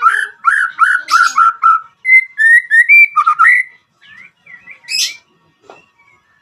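White-rumped shama singing: a fast run of short repeated whistled notes, then higher gliding whistles, dropping to quieter scattered notes after about four seconds.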